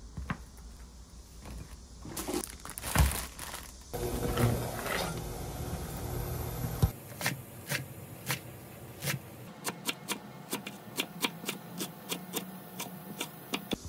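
Plastic packaging rustling and crinkling, then a few seconds of steady rushing noise, then a chef's knife chopping garlic chives on a wooden cutting board: slow single cuts at first, quickening to about five quick knocks a second near the end.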